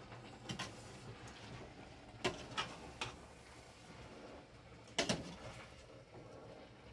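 A metal spoon knocking and scraping against an aluminium cooking pot while greens are stirred: a few sharp clinks, the loudest about five seconds in, over a faint steady low hum.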